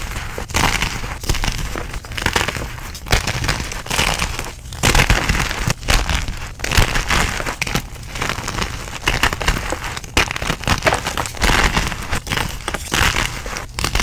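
Blocks of dyed gym chalk crunching and crumbling as hands squeeze them into chunks and powder: a run of crisp crackling bursts, each squeeze followed by a brief pause.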